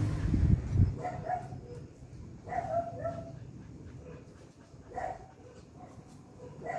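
A Jack Russell terrier giving short whining yips, four brief calls spaced a second or two apart. A low vehicle rumble fades out in the first second.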